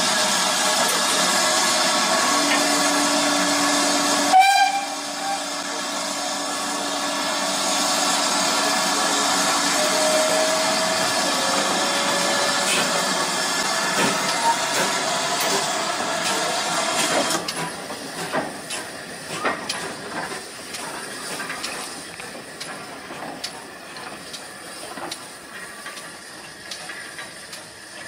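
Great Western 2800-class 2-8-0 steam locomotive No. 2807 blowing off steam with a loud, steady hiss, with one short whistle toot about four seconds in. The hiss cuts off suddenly after about seventeen seconds, leaving quieter knocks and clanks as the engine moves off.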